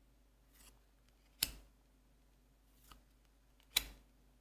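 Trading cards handled in the hand: a soft brush of card on card, then a sharp snap as a card is moved to the back of the stack, heard twice, about a second and a half in and again near the end.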